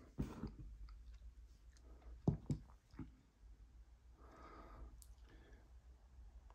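Handling noise from a large glass vacuum tube being moved on a cloth-covered table: a few soft knocks and clicks, the loudest about two seconds in.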